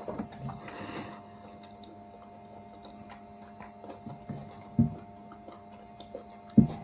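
Quiet eating sounds: a person eating wheat swallow with okra soup, with soft mouth clicks and a couple of low thumps near the middle and the end, over a steady electrical hum.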